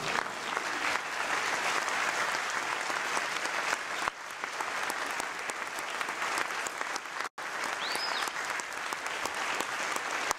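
Audience in a theatre applauding steadily, many hands clapping together.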